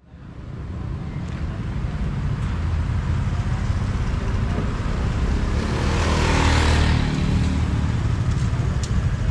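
Road traffic of motorcycles and cars driving past at close range with a steady low engine rumble, fading in over the first second or two. One vehicle passes loudest about six to seven seconds in.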